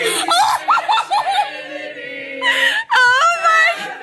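A group of people laughing and letting out high-pitched squeals, with group singing around it.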